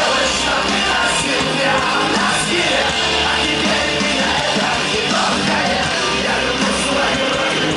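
A live rock band playing loud on an open-air festival stage, heard from the crowd.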